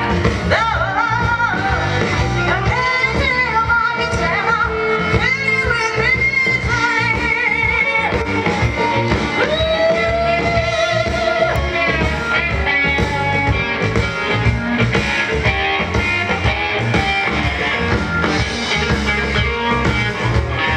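Live soul band playing through PA speakers, a woman singing lead over keyboard and drums, with one long held note about halfway through.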